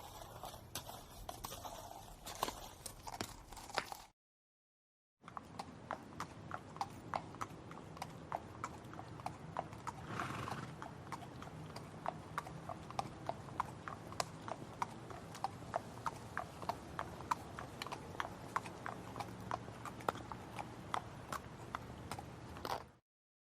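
Horse hooves clip-clopping in a steady, even rhythm for most of the time, after a short separate horse recording that cuts off into about a second of silence.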